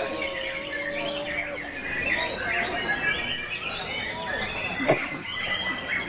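Several caged songbirds singing at once, a dense mix of chirps, trills and whistles, with a white-rumped shama (murai batu) singing among them. A single sharp knock about five seconds in.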